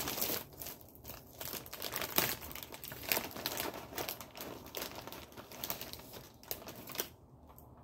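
Plastic snack-bar wrapper of a Power Crunch bar crinkling as it is handled, in a run of irregular crackles that dies down near the end.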